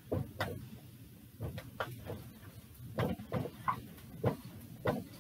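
Dry-erase marker writing on a whiteboard: about a dozen short, irregular scratchy strokes and taps, with a brief squeak near the middle.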